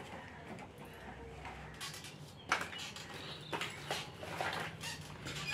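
Plastic toys knocking and clattering as a hand rummages through a toy box: a string of irregular clicks and knocks, the sharpest about halfway through.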